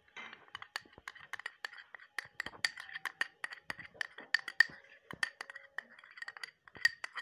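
Dishes clinking and tapping against a glass mixing bowl as thick tamarind pulp is poured and scraped out of a small bowl onto the chickpeas and yogurt. The clicks are quick and irregular, several a second.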